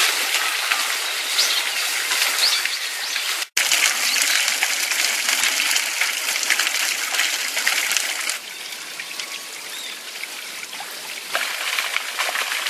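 Fountain water splashing and trickling into a pond as a steady hiss. The sound changes abruptly twice as the view switches between fountains, and it is softer in the last part.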